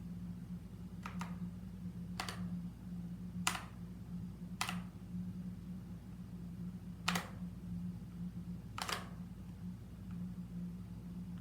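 Single key presses on a mechanical keyboard, six separate clicks spaced about a second apart with a longer pause midway, over a steady low hum.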